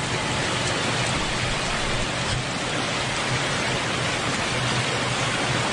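Shallow mountain creek running over rocks and riffles: a steady rush of flowing water.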